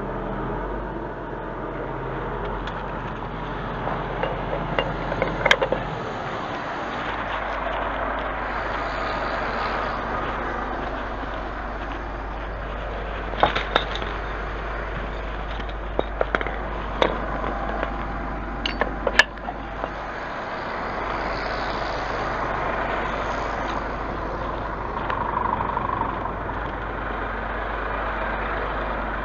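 Scania truck's engine running steadily, as it does while powering the loading crane, with a few sharp clicks and knocks now and then.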